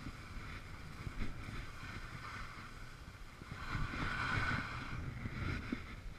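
Wind buffeting the microphone in a low rumble, with skis scraping and hissing over packed snow; a louder scrape swells a little under four seconds in.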